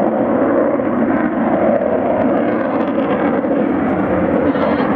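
F-16 fighter jet flying overhead: its jet engine gives a loud, steady rush of noise that holds level without rising or falling.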